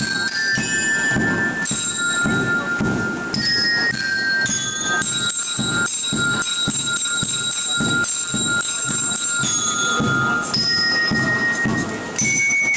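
Marching band music: bell lyres (marching glockenspiels) play a melody of long-held ringing notes over a steady drum beat.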